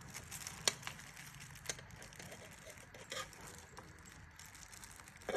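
Scattered light clicks and faint handling noise from lock hardware being fitted by hand, with a few sharp ticks spaced about a second apart.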